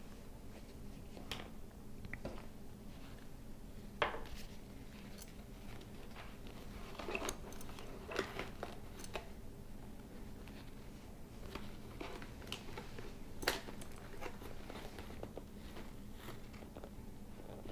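Hands handling a Shoei Neotec 2 motorcycle helmet while fitting its padded chin pad back in: scattered light clicks, taps and fabric rustles, the sharpest about 4 seconds in and again about 13 seconds in, over a faint steady hum.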